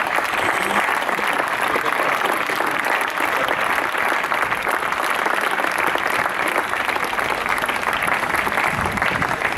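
Crowd of tennis spectators applauding, a steady patter of many hands clapping at the end of the match.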